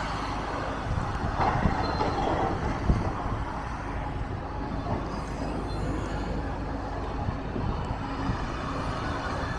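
Steady low rumble of heavy demolition machinery working on a building, without sharp crashes.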